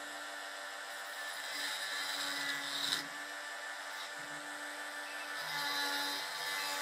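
Proxxon rotary tool running steadily with a small grinding stone, grinding along the edges of a machined metal block. The grinding noise swells twice, about two seconds in and again near the end.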